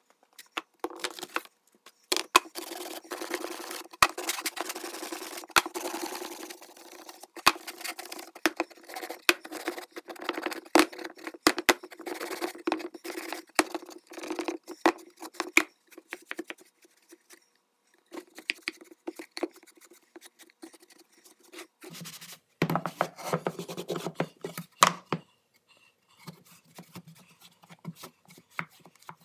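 Cloth wiping and rubbing on a wooden box, with many scattered knocks and taps as the box is handled and set down.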